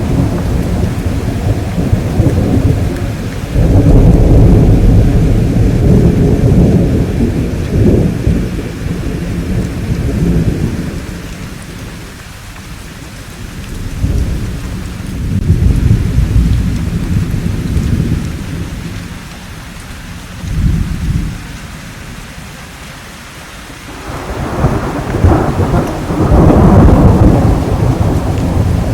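Thunderstorm: steady rain with rolling thunder that swells and fades in waves. The rumbles are loudest a few seconds in and again near the end, with a short sharper burst about twenty seconds in.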